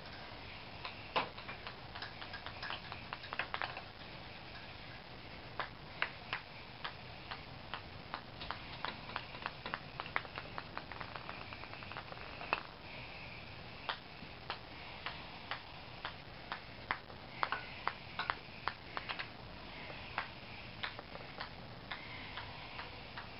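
Ping pong ball clicking against ceramic floor tiles as kittens bat it about: irregular sharp ticks, sometimes in quick runs of small bounces, with gaps between.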